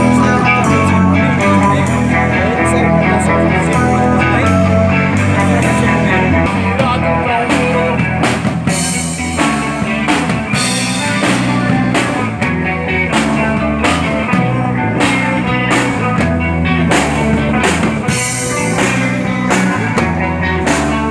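A live rock band playing an instrumental passage: electric guitars and bass over a drum kit keeping a steady beat.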